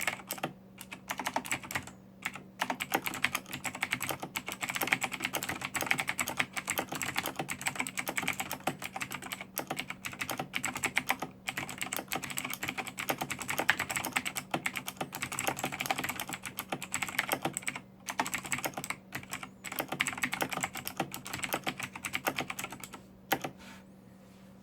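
Fast touch-typing on a Razer BlackWidow Chroma mechanical keyboard with Razer Green clicky switches: a rapid, continuous stream of sharp key clicks with short pauses now and then. The typing stops about a second before the end, after a last few isolated keystrokes.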